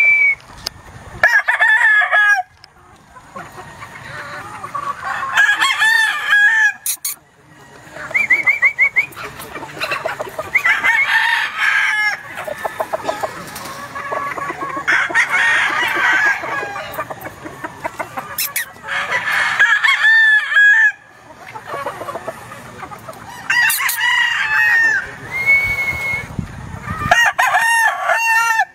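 Gamefowl roosters crowing again and again, with chickens clucking between the crows.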